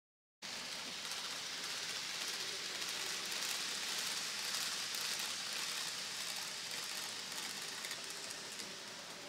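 N gauge model trains running on the layout: a steady whirring hiss of small motors and wheels on track that starts suddenly about half a second in, swells slightly in the middle and eases off toward the end.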